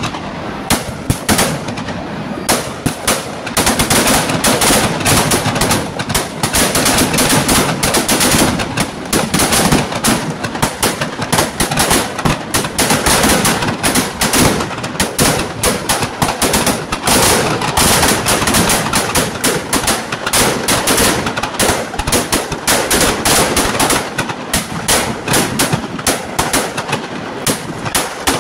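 Firecrackers packed inside a burning Ravan effigy going off in a rapid, continuous crackle of bangs, growing denser and louder a few seconds in.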